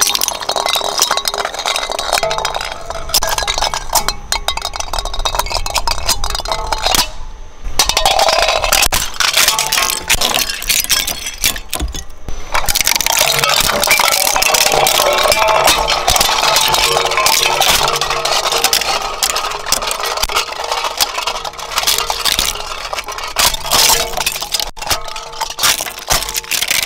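Twin-shaft shredder crunching skeleton-hand Halloween goblets: a dense run of cracking and clinking as the cutters break them up, with short lulls about seven and twelve seconds in, over the steady hum of the machine.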